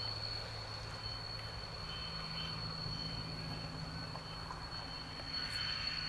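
Diesel locomotive engine of a slow-moving catenary work train, running steadily with a low hum. Its note steps up about two seconds in, and a steady high whistle sits over it.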